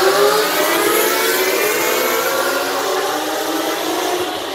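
A pack of racing sportbikes accelerating past on a wet track, several engines overlapping with their pitch climbing as they pull through the gears. Loudest at the start, then slowly fading as they move away.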